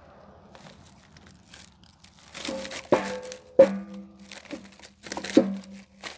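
Split firewood pieces knocking together and against the steel barrel of a firewood bagging station as a filled mesh bag is handled, with rustling of the bag. Quiet at first; from about two seconds in come several sharp knocks, the loudest three around the middle and near the end, each followed by a brief ringing tone.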